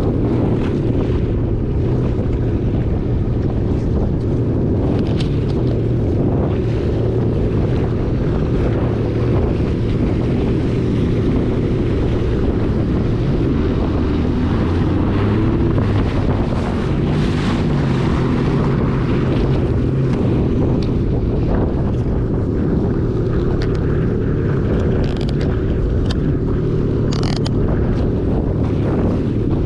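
2022 Yamaha EX Sport WaveRunner's 1049 cc three-cylinder four-stroke TR-1 engine running steadily under way, with wind buffeting the microphone and water spray hissing past.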